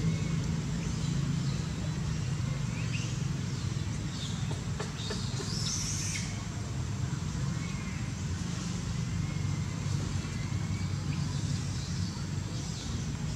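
Steady low mechanical hum, with faint high bird chirps now and then and a brief brighter high call about six seconds in.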